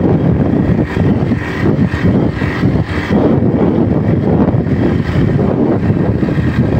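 Motorcycle riding at speed: wind buffeting the microphone over the steady drone of the motorcycle's engine.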